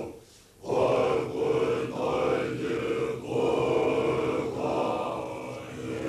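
Droning chant sung in a low, steady voice, with short breaks for breath, the longest about half a second in.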